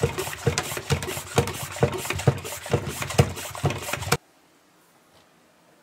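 Hand-pump pressure sprayer being pumped up to build pressure: an even rhythm of about two plunger strokes a second, each a low thump with an airy hiss. It cuts off suddenly about four seconds in, leaving faint room tone.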